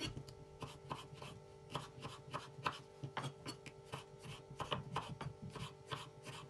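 Kitchen knife dicing tomatoes on a wooden cutting board: quick, uneven taps of the blade striking the board, about three a second, over a faint steady hum.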